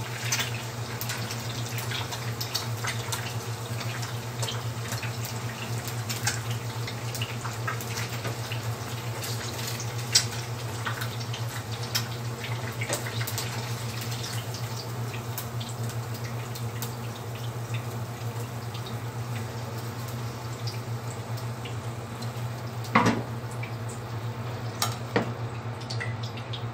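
Sunny-side-up eggs frying in oil in a nonstick pan, a steady sizzle with small crackles and pops throughout, over a steady low hum. A sharp knock about 23 seconds in.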